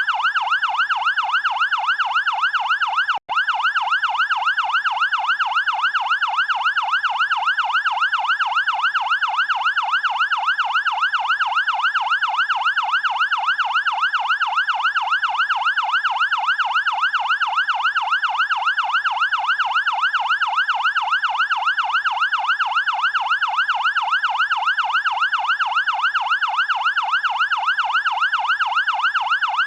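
Fire engine electronic siren in a fast yelp, a wailing tone sweeping rapidly up and down over and over at an even pace. It cuts out for an instant a little over three seconds in.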